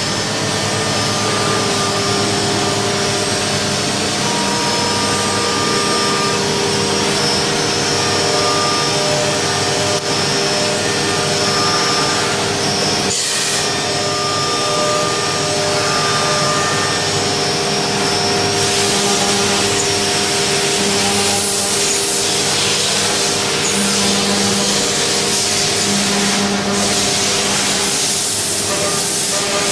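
Mazak VTC 300C CNC vertical machining center running a milling cycle: several steady tones over a continuous hiss. There is a brief sharp noise about 13 seconds in, and the hiss turns brighter about halfway through.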